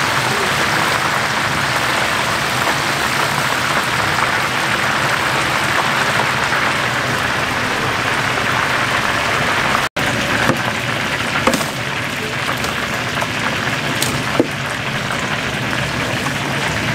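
Hot oil sizzling steadily as mini blue crabs deep-fry in a wire basket. After a brief break about ten seconds in, the sizzle goes on with a few short sharp clicks.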